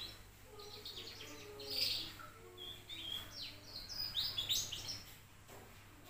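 A two-month-old domestic canary twittering loudly in quick runs of high chirps and short sliding notes, stopping about five seconds in.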